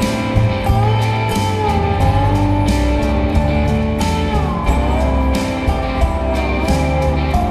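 Background music with guitar, a bass line and a steady beat.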